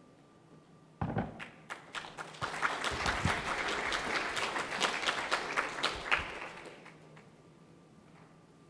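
Audience applauding: many hands clapping, starting about a second in and dying away after about six seconds.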